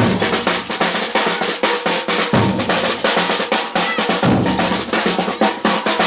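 Batucada percussion ensemble playing a samba rhythm: a dense, rapid run of snare-type strokes, with deep surdo bass drums coming in for stretches of about a second, roughly every two seconds.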